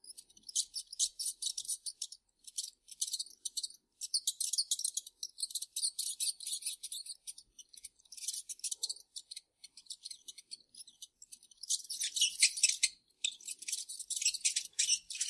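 Mice squeaking: rapid, high-pitched chirps in dense clusters, thinning out for a couple of seconds around the middle before picking up again.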